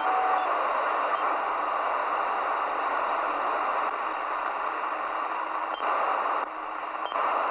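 Midland Alan 8001 CB radio receiving the freeband with no station transmitting: a steady hiss of band noise through its speaker. A steady tone cuts off about half a second in, and the noise dips briefly near the end.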